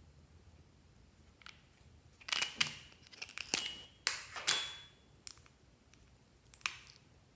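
Slime being worked by hand, giving a run of sharp crackling clicks and pops for about three seconds, then a single pop near the end.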